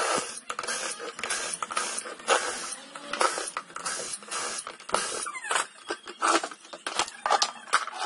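Cordless drill-driver running in short, irregular bursts as it backs the screws out of a washing machine's plastic outer tub.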